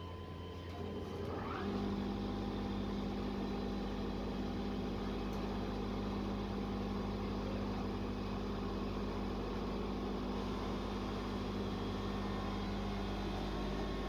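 Electric motor of a pepper-paste machine starting up about a second and a half in with a brief rising whine, then running with a steady hum.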